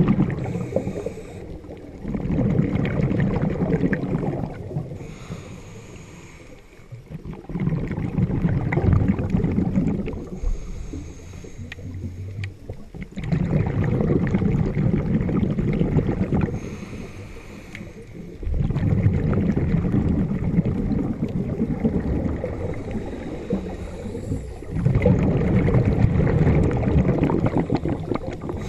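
Scuba diver breathing through a regulator: about six loud, low bubbling exhalations, one every five to six seconds, with a quieter hiss of the inhale between them.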